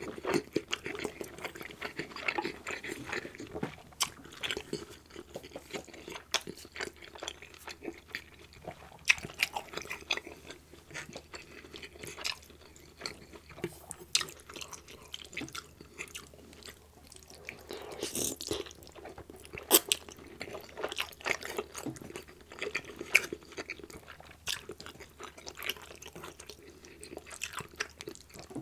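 Close-miked chewing and slurping of egg noodles in gravy: wet mouth sounds with many sharp little clicks and smacks throughout.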